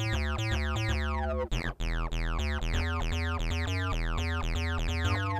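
Vitalium software synthesizer playing a fast acid-style bass line through a 24 dB low-pass filter. On each note an envelope sweeps the filter cutoff downward, the classic filter sweep. Notes change several times a second, with a brief break about one and a half seconds in.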